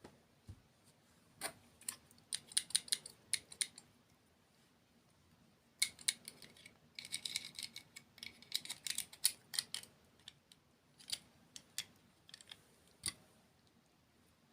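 Close-miked crunchy chewing of a dessert: runs of crisp crackles, with a burst about a second and a half in and a longer one from about six seconds in, then a few single crunches.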